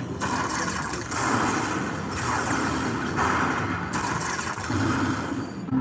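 Lightning Link Tiki Fire slot machine's bonus sound effects: a noisy electric crackle about once a second as lightning strikes the fireball prizes and the win tallies up after the free spins.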